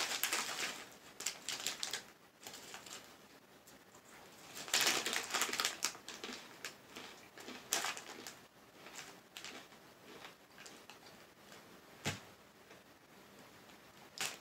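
Crinkling of a foil bag of Takis Fuego rolled tortilla chips as hands dig into it, with crunching of the chips being eaten, in irregular bursts, loudest about five seconds in.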